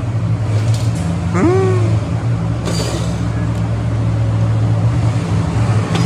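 A steady, loud, low mechanical drone, like a running engine or machine, goes on throughout. About one and a half seconds in there is a brief rising squeak, and a short hiss comes near three seconds in.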